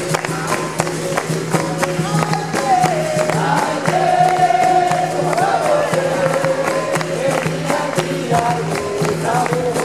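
Capoeira roda music: group singing over a steady drone and struck percussion, typically berimbau and pandeiro, with the sung melody coming through clearly from about two and a half seconds in.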